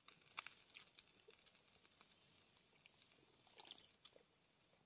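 Near silence with a few faint, scattered clicks of a person chewing food with his mouth close to the microphone.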